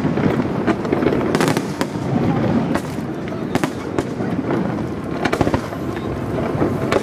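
Aerial fireworks display: shells bursting in a dense, continuous crackle, broken by sharp bangs at irregular moments, a cluster of them about one and a half seconds in and another near five and a half seconds.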